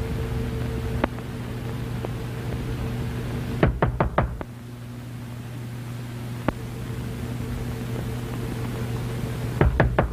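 Knocking in two quick bursts: about four rapid raps a little under four seconds in, then a longer run of raps near the end, with a few single faint knocks between. Under it runs the steady hum of an early sound-film soundtrack.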